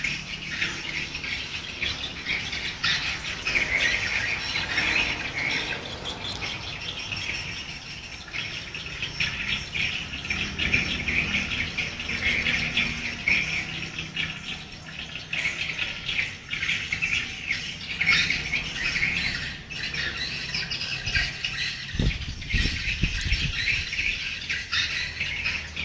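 A flock of small birds circling overhead, chirping and twittering continuously in a dense, high-pitched chatter. A brief low bump and rumble comes near the end.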